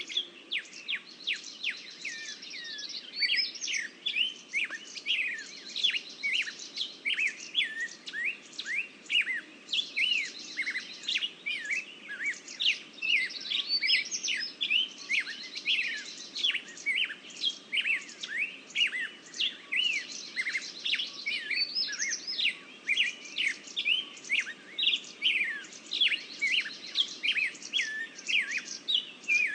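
Songbirds chirping in quick, overlapping succession, with a trilled phrase repeated every few seconds.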